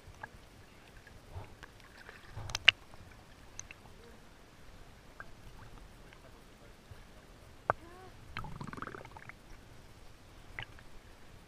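Swimming-pool water sloshing and splashing close to the microphone, with a few sharp knocks: the loudest about two and a half seconds in, another near eight seconds.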